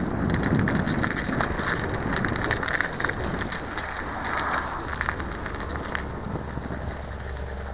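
Snow and ice crunching and crackling under a slow-moving vehicle, over the steady low hum of its engine. The crunching fades gradually as the vehicle slows.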